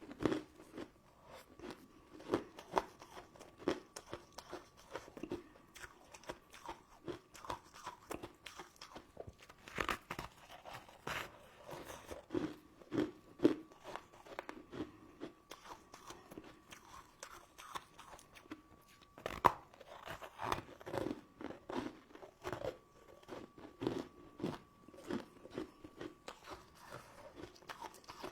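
Close-miked eating of sugar-coated candy and jelly: a steady run of crisp crunches, bites and wet chewing, with the sharpest crunches about ten seconds in and again near the two-thirds mark.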